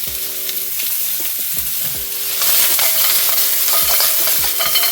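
Pork pieces searing in hot oil in a wok, sizzling steadily while being stirred, with repeated scrapes and knocks of the spatula against the pan. The sizzle grows louder about halfway through.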